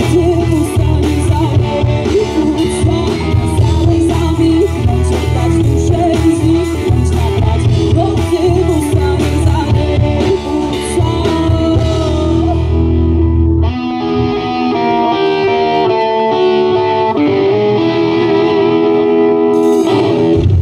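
Live rock band through a stage PA: electric guitars, bass guitar and drums with a female singer. About two-thirds of the way through, the bass and drums drop out and only held guitar chords go on.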